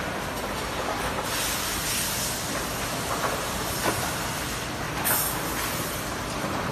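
Steady machine noise from an automatic soldering robot line, with a hiss that starts about a second in and lasts over a second, a shorter sharp hiss about five seconds in, and a few light clicks.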